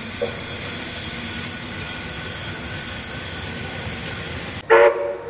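Modern electric suburban train pulling away from the station: a steady rumble of running noise with high, steady whining tones. It cuts off abruptly near the end, and a short pitched sound follows.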